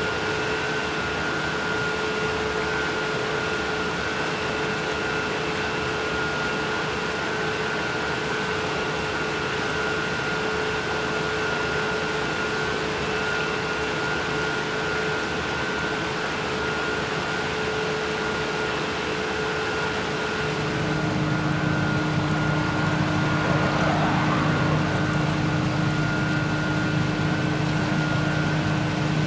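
Steady mechanical hum and whine of running Francis turbines, over the rush of turbine discharge water churning out of the draft tubes. About two-thirds of the way in the sound shifts to a lower, slightly louder hum.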